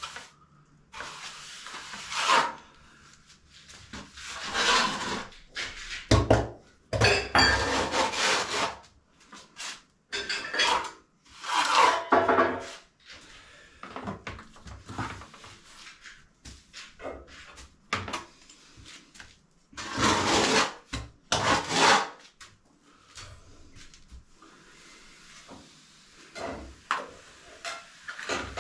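Plastering trowel scraping render off a hawk and spreading it across a wall: irregular rasping strokes, each up to about a second long, some coming in quick runs.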